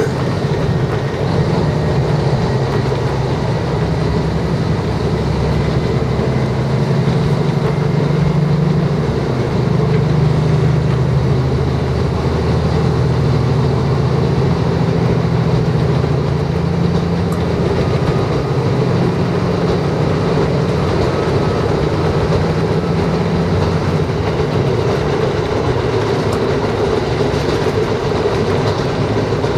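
Diesel railcar running at speed, heard from inside the passenger cabin: a steady engine drone with rail and wheel noise. The drone shifts a little in pitch partway through.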